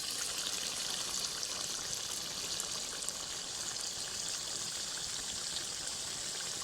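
Steady sizzling of food frying in hot oil, an even hiss with faint crackles.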